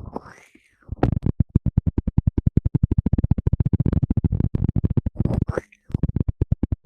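Rapid close-up ASMR scratching trigger, short strokes about a dozen a second, with a brief pause about a second before the end.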